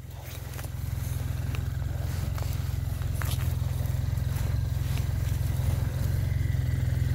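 An engine running with a steady low drone that grows louder over the first second and then holds. Faint crunching of footsteps in deep snow sounds over it.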